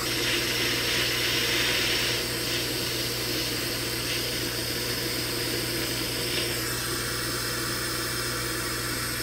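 Handheld micro torch burning with a steady hiss, its flame heating a brass key post on a saxophone body to sweat-solder it back in place; the hiss is a little stronger in the first two seconds.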